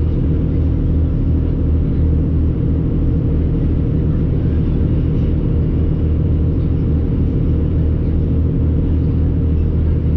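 Riverboat engine running steadily: a constant low drone with an even hum, unchanged throughout.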